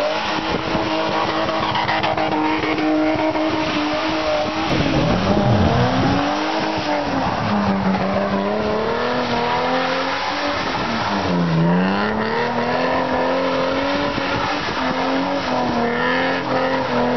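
BMW E30's engine revving up and down through a drift, with the tyres squealing on a wet road. The engine pitch drops sharply and climbs back twice, about five and about eleven seconds in.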